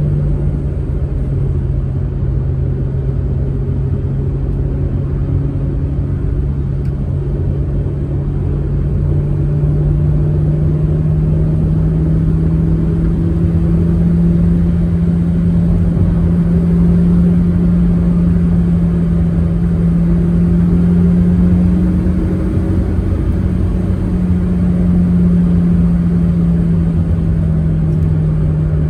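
Manual Proton Saga driving at a steady cruise: a constant engine drone with low road rumble. The engine pitch rises and falls slightly as speed changes a little.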